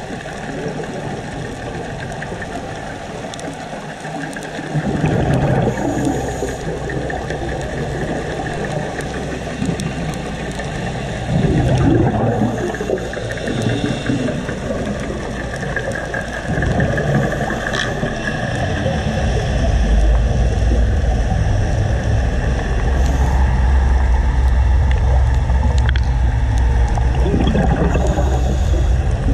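Underwater noise picked up by a diver's camera: a low rumble that swells every few seconds and grows stronger and steadier in the second half.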